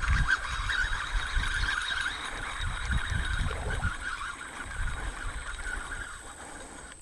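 Zebco 33 spincast reel being cranked, a wavering whir that fades out about six seconds in, with low bumps from handling, as a small bluegill is reeled in.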